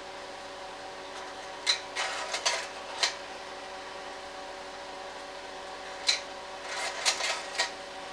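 Slide projector running with a steady motor and fan hum. Two bursts of clicking and clatter, about two seconds in and again from about six to seven and a half seconds in, are the slide-change mechanism advancing to the next slide.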